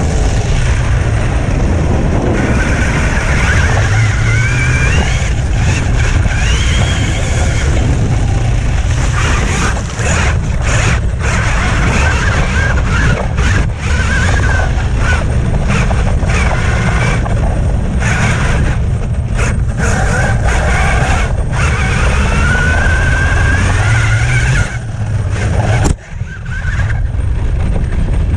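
Brushless electric motor of a 6S-powered Traxxas T-Maxx RC truck whining up and down in pitch, again and again, as it is driven hard, over a heavy low rumble.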